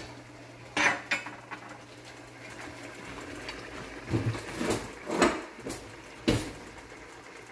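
Kitchen cookware clatter: several scattered knocks of a pan and utensils over a steady low hum.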